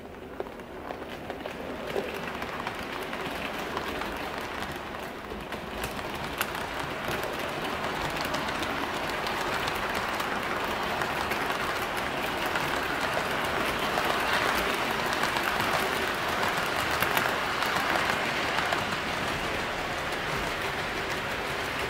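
HO-scale model train, an EF61 electric locomotive hauling eleven baggage cars, rolling along the track: a steady rush of small metal wheels on rail with scattered clicks over the rail joints, growing louder over the first half and then holding level.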